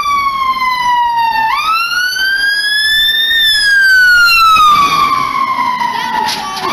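A siren wailing, its pitch sliding slowly down, then up, then down again over several seconds.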